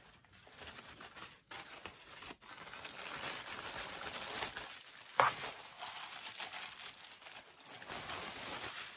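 Pink mailer package being torn open and its plastic and wrapping crinkled and rustled by hand: a run of irregular crackles and rustles with one louder, sharp crackle about five seconds in.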